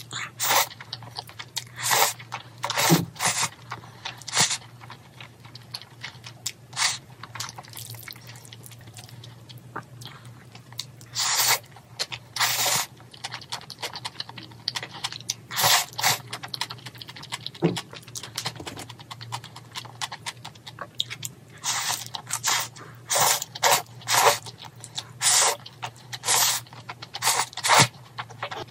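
Close-up eating sounds of jjajangmyeon: noodles slurped in short, loud bursts at irregular intervals, with chewing between them.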